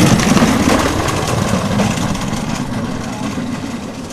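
Soap box cart's wheels rumbling on the asphalt as the cart is pushed off and rolls away downhill, fading slowly.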